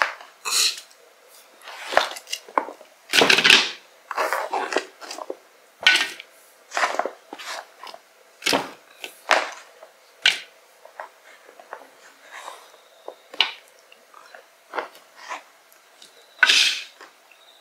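Sliced onion handled with the fingers on a plastic cutting board: a string of short, irregular rustles and light knocks as the layers are pulled apart. Near the end there is a louder rattle as pieces are dropped into a plastic bowl.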